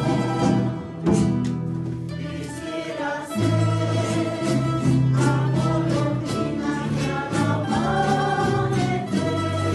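Plucked-string orchestra of mandolins and guitars playing, with a choir singing along.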